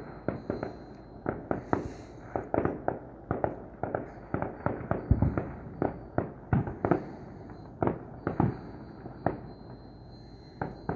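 Distant consumer fireworks and firecrackers going off: an irregular run of sharp bangs and pops, often several a second, each with a short echoing tail. The densest and loudest bangs come around the middle.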